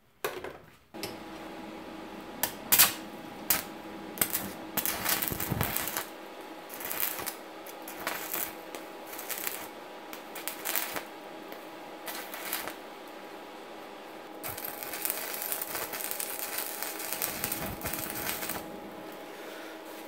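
Electric arc welding on the steel pedal bracket, repairing its broken-off socket: the arc starts about a second in and hums steadily, with irregular crackles and ticks, getting hissier for a few seconds in the second half.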